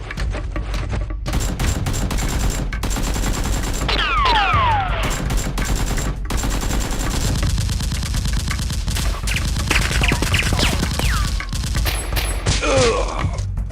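Rapid, continuous gunfire: bursts of automatic-weapon shots, with a few falling whistling glides among them.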